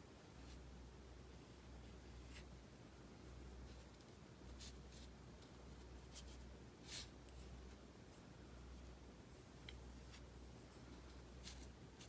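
Faint swishes and scratches of a sumi ink brush stroking across paper, several short strokes scattered through a near-silent room, the clearest about seven seconds in, over a faint low hum.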